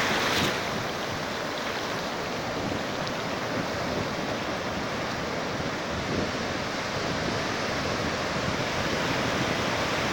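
Ocean surf: waves washing in and breaking in a steady rush, with wind buffeting the microphone.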